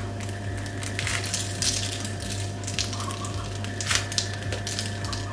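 The crisp sesame-seed crust of a baked simit crackling as hands tear the ring apart, in scattered bursts over a steady low hum.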